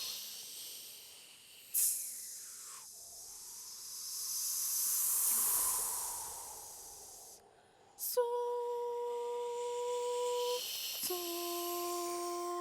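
Sopranos making a windy hiss that swells and fades, with a short falling glide about two seconds in. About eight seconds in it gives way to two long, steady hummed notes, the second lower than the first.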